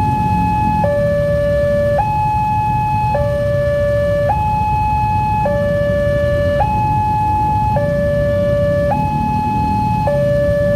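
Electronic two-tone warning alarm of a WANTECH railway level-crossing signal, alternating between a higher and a lower tone, each held about a second, over a steady low rumble.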